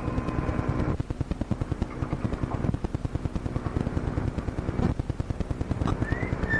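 Rapid, even mechanical clicking of fire alarm office signalling equipment. A steady tone sounds through the first second, and there is a short rising chirp near the end.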